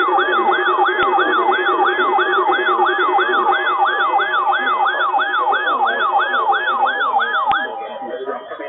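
Electronic yelp-style siren tone sweeping rapidly up and down, about two and a half sweeps a second, over steady lower tones. It cuts off with a click near the end.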